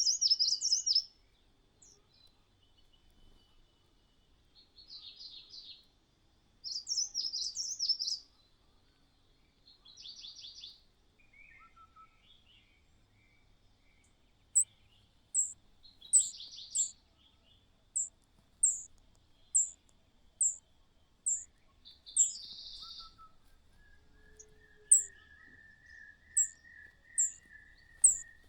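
Small songbirds chirping: several short bursts of high, scratchy chirps, then from about halfway a regular run of short, thin, falling notes, a little more than one a second.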